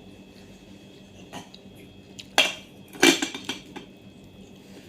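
Spoon and fork clinking against a plate while eating: a few separate sharp clinks, with the two loudest near the middle.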